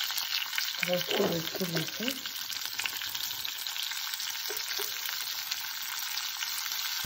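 Hot oil sizzling steadily in a nonstick frying pan, tempering cumin seeds, sliced garlic and green chilli, as crushed red chilli flakes go in.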